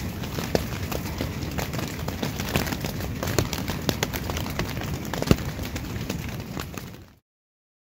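Heavy rain hitting a tent's fabric: a dense, irregular patter of sharp drop impacts over a low rumble. It fades out about seven seconds in and cuts to silence.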